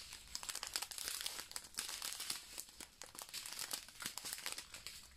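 Small clear plastic zip-lock bags of round diamond-painting drills crinkling continuously as they are handled and turned over in the hands.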